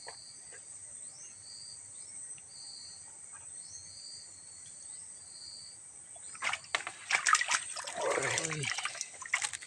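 Insects chirping in short, evenly repeating pulses. About six seconds in, loud splashing and rapid slaps in the water break out: a hooked river fish thrashing at the surface.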